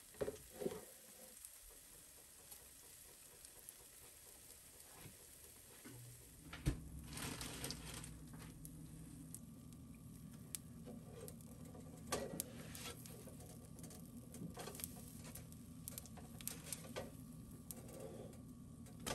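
Pancakes frying in oil in a nonstick pan, a soft sizzle with scattered clicks and taps of a spatula against the pan. A low steady hum comes in about a third of the way through.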